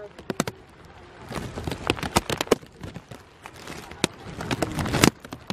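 Footsteps on loose gravel and stones: an irregular run of crunches, bunched around two seconds in and again near the end, the loudest step just before the end.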